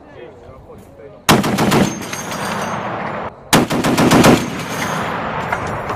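M2 .50-calibre heavy machine gun firing two long bursts of rapid shots. The first starts about a second in and stops abruptly, and the second follows a moment later.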